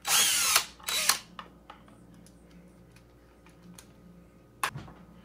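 DeWalt cordless drill-driver backing out a battery screw from the scooter's aluminium deck: a short run whose motor pitch rises then falls, then a second brief burst about a second in. A few light clicks of handling follow, with a sharper click near the end.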